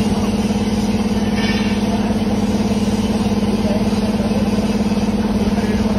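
Electric samosa and pani puri sheet-making machine running: a steady motor hum with a fast, even pulsing from its drive.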